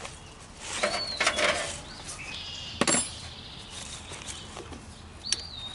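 Metal clinks and knocks of a wrench on the lawn tractor's solenoid terminal nuts. There are a few separate strikes, the sharpest about three seconds in.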